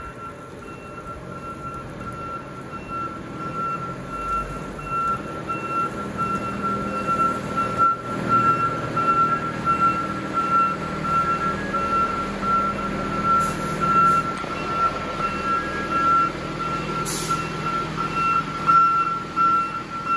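Pierce fire engine reversing: its backup alarm beeps steadily over the diesel engine running at low speed, and the engine grows louder as the truck backs in close. There are a few short hisses of air, the loudest about 17 seconds in.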